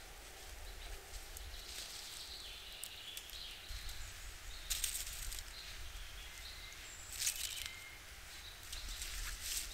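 Dry sticks rustling and scraping against one another as they are pushed into the frame of a stick-built debris shelter, in three brief bursts over a faint, steady outdoor background.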